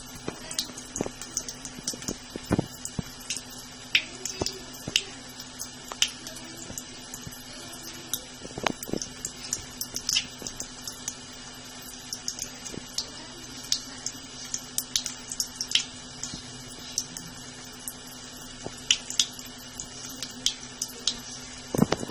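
Water running from a tap into a sink, a steady stream broken by frequent, irregular small splashes and drips as a cat paws at the flow.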